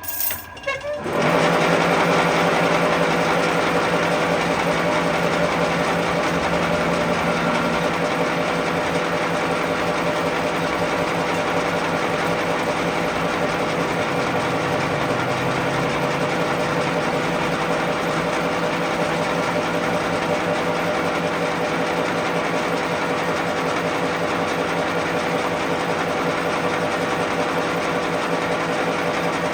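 A workshop machine's motor and gearing start up about a second in and then run steadily.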